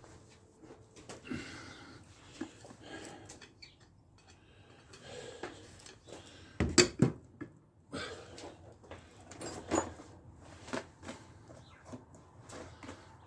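Scattered clicks and knocks of tools and metal parts being handled while working on a lawn mower's front axle, with a louder cluster of knocks a little under seven seconds in.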